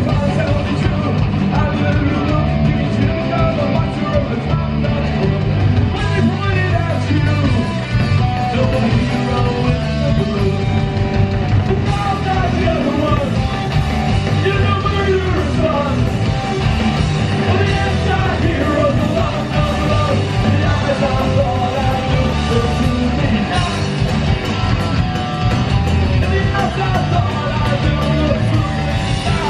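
Punk rock band playing live: electric guitars, bass and drums, with a singer on the microphone, heard from the crowd.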